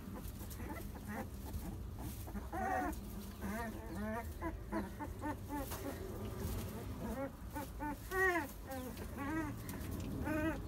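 Young puppies whimpering: a string of short, whiny calls that rise and fall in pitch, starting about two and a half seconds in and coming every half second or so, over a low steady rumble.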